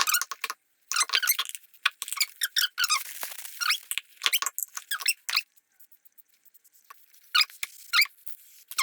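Quick, irregular run of short squeaks and clicks from hand work on a lawn mower's rear wheel and its bearings, pausing for about a second and a half partway through.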